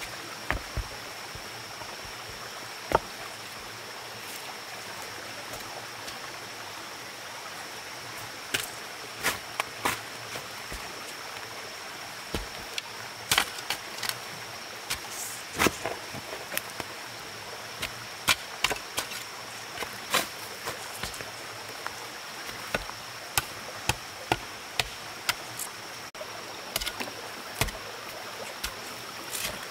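Irregular sharp knocks and taps, bunched in spells of several close together, over a steady hiss and a thin, steady high tone.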